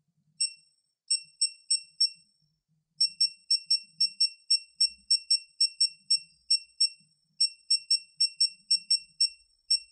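Snap-on digital torque wrench beeping at each press of its setting button as the target torque is stepped up to 60 foot-pounds. Short high beeps, a few spaced ones first, then after a brief pause a steady run of about three a second.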